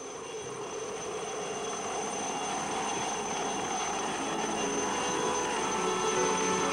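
Helicopter rotor and turbine noise, growing steadily louder as the helicopter comes down to land close by. Music fades in over it in the second half.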